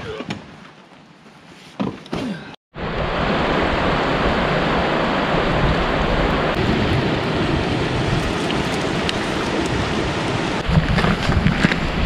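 A fast, shallow stream rushing over rocks, a loud steady rush of water that starts suddenly about three seconds in. A few faint knocks come before it, and crunching footsteps on a gravel trail join in near the end.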